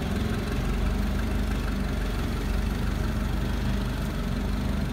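Nissan forklift's propane-fuelled engine running steadily at low revs as the truck creeps along.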